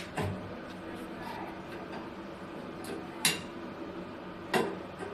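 A few sharp metallic clinks, the loudest a little past three seconds in: a wrench knocking against a chrome wall mixer's fittings as its nuts are tightened onto the wall.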